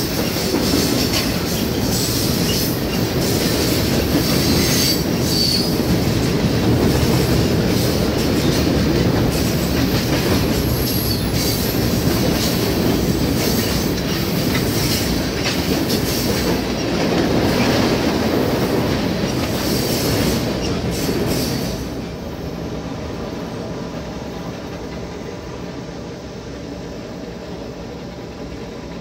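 Freight train cars (tank cars and covered hoppers) rolling past close by on a railroad bridge: a steady rumble with repeated wheel clicks over the rail joints. About three-quarters of the way through, the end of the train passes and the sound drops and fades as it moves away.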